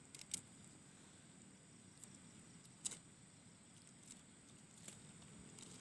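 Near silence: faint outdoor background hiss with three faint short clicks spread through it.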